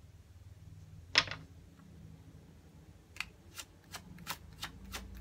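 Tarot deck being shuffled by hand, overhand: one sharp snap of the cards about a second in, then a steady run of crisp card slaps, about three a second, from about three seconds in.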